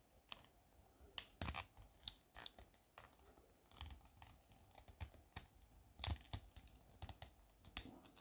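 Faint plastic clicks and scrapes from a 3.5-inch floppy disk's plastic shell being prised apart by hand, with a sharper click about six seconds in.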